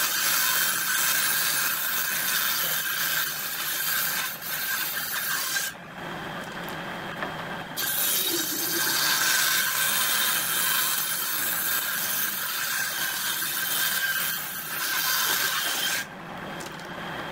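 Circular saw of a combination woodworking machine ripping the bark edge off a rough wooden plank: two long cuts, a loud hiss over the blade's steady whine. About six seconds in and again near the end, the board leaves the blade, which spins free and goes quieter.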